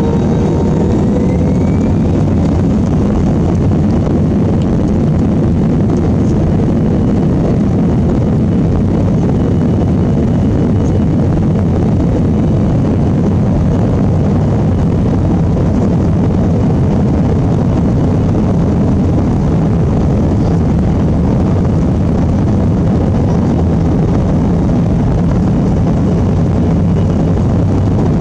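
Airbus A321's jet engines spooling up for takeoff, heard from inside the cabin: a rising whine in the first couple of seconds, then a steady, loud, low-pitched noise of the engines at takeoff power and the wheels rolling down the runway.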